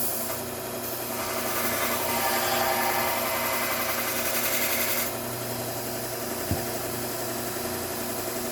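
Bucktool slow-speed belt grinder running steadily while a scissor blade is ground against the belt. There is a grinding hiss from about a second in until it stops abruptly around five seconds, then just the motor, with a single sharp click a little later.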